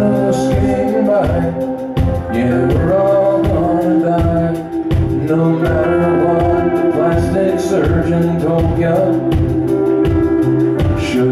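Live band playing a song: electric guitars, bass and drums with a steady beat, and a man singing lead.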